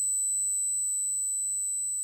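Synthesized space-like sound effect: a steady high-pitched electronic tone over a faint low hum, slowly fading.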